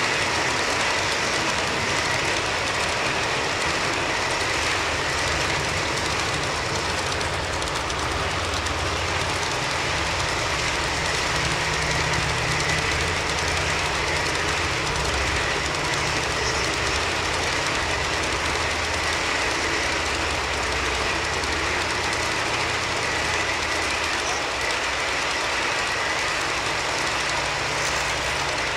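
A long string of empty G-scale model hopper cars rolling past on garden-railway track: the steady running noise of many wheels on the rails, with a low uneven rumble and a thin, steady high whine over it.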